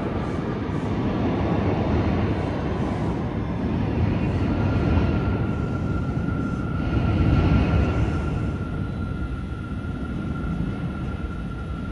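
New York City subway train running through the station with a steady rumble of wheels and motors, swelling about seven seconds in. A steady high tone joins about four seconds in.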